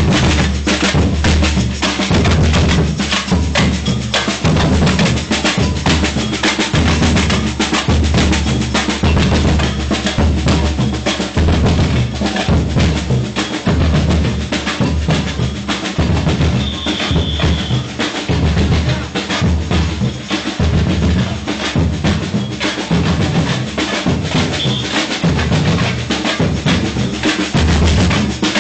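Samba-reggae drum ensemble playing a steady, dense rhythm: deep bass drums carrying the beat under snare drums and other struck percussion.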